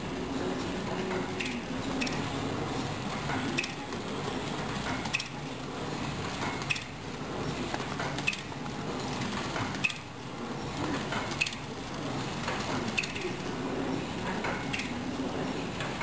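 Packmate C350-HL flow wrapper running as it wraps sponges into pillow packs: a steady mechanical hum with a sharp metallic clink about every second and a half.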